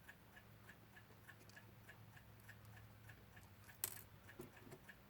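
Faint, even ticking of a mechanical clock, about three ticks a second, with one sharp click a little before the end and a couple of softer knocks after it.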